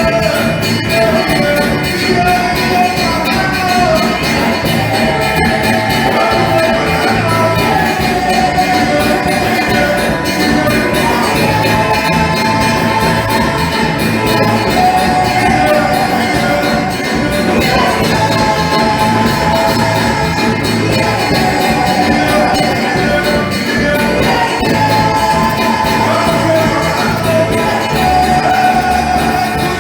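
Live music with a steady beat and voices singing.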